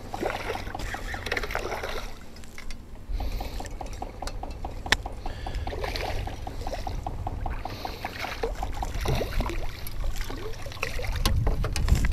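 Water splashing as a hooked redfish thrashes at the side of the boat, with a fishing reel clicking steadily at about six clicks a second. Wind rumbles on the microphone.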